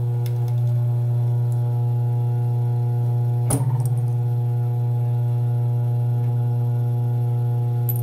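Steady low electric hum of an industrial sewing machine's motor running idle, with one sharp metallic click about three and a half seconds in as a small metal part of the machine is handled.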